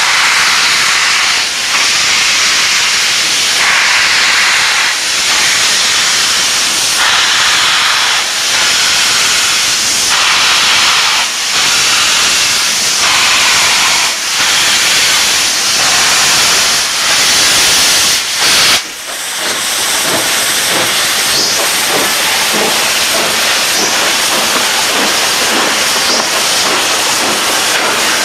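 Canadian Pacific Royal Hudson 4-6-4 steam locomotive starting a train, hissing loudly as steam blasts from its open cylinder cocks in rhythmic surges about every one and a half to two seconds. After a short break about two-thirds of the way through, the hiss goes on with more low rumble as the engine rolls by.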